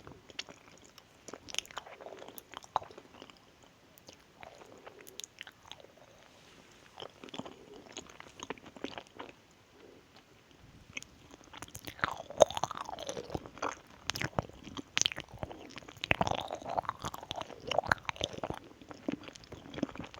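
Close-miked ASMR mouth sounds: chewing with wet clicks and smacks, louder and busier in the second half.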